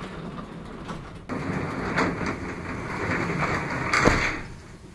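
Overhead garage door rolling along its track, a steady rattling rumble that starts about a second in and ends in a thump about four seconds in.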